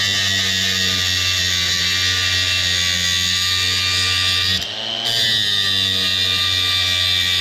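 Grinder grinding the pin of a steel roller-chain link flat, a steady loud motor whine with grinding noise. It dips briefly about four and a half seconds in and picks straight back up.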